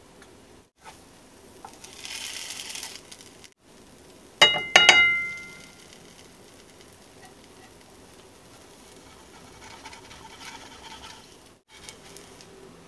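Mini pancakes sizzling in a frying pan as they are flipped with a slotted spatula, with a louder hiss of batter frying a couple of seconds in. About four and a half seconds in come two sharp clinks with a short ring, the spatula knocking on the pan.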